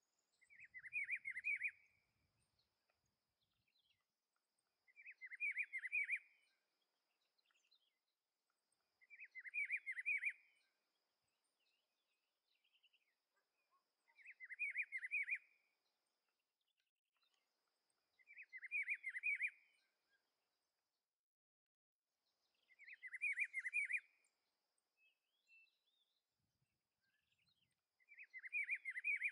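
Rufous-browed peppershrike (pitiguari) singing: the same short phrase of quick notes repeated seven times, about every four to five seconds.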